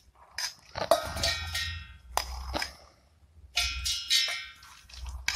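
Stainless steel containers knocking and ringing several times as soaked moong dal is tipped and scooped by hand into a steel mixer-grinder jar.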